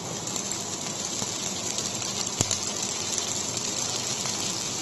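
Shredded cabbage, onion and beetroot sizzling in hot oil in a kadhai, a steady hiss, with one sharp tick about two and a half seconds in.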